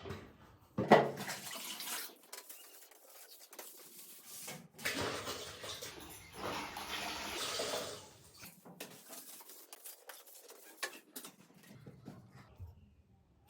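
Water running and splashing in two spells, with a sharp knock about a second in.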